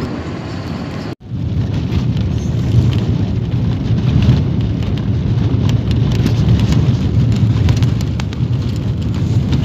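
Steady road and engine noise heard from inside a moving vehicle at road speed, a low rumble with crackling buffeting over it. It cuts out for an instant about a second in.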